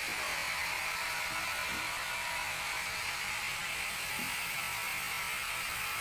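Sawmill band saw running with a steady mechanical hiss.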